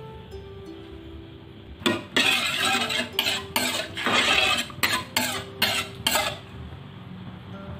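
Water poured from a small bowl into a metal mixing bowl of black glutinous rice, splashing in a series of short dashes from about two seconds in until about six seconds.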